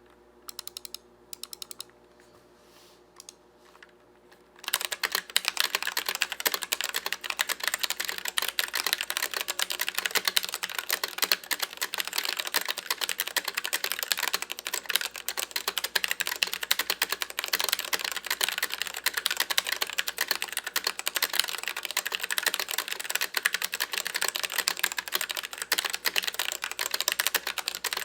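Fast, continuous typing on a Royal Kludge RK84 mechanical keyboard with stock, unlubed Gateron Red linear switches in its stock case and plate. A few scattered key clicks come first, and the steady run of keystrokes starts about four and a half seconds in.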